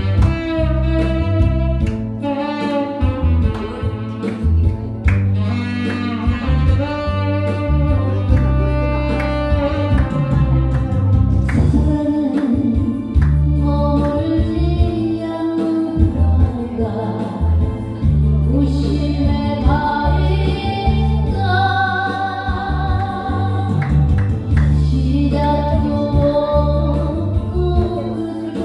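Korean trot song: a plaintive sung melody over a backing band with a heavy, pulsing bass line.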